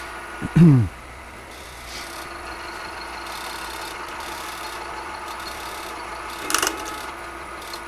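Milling machine spindle running steadily while a carbide end mill cuts hard K460 tool steel. About six and a half seconds in comes a sharp crack with a brief ring: the carbide end mill breaking in the cut. Near the start there is a short, loud sound that falls in pitch.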